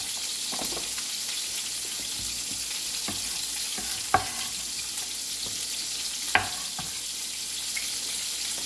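Chicken pieces browning in hot oil, sizzling with a steady hiss. A few sharp knocks cut through, the loudest about four and six and a half seconds in.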